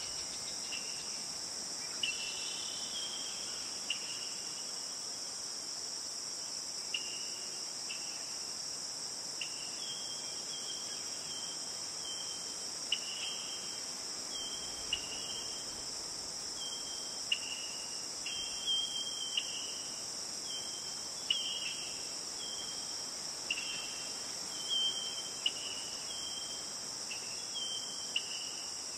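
A steady, high-pitched insect chorus with short chirps scattered through it, more frequent in the second half.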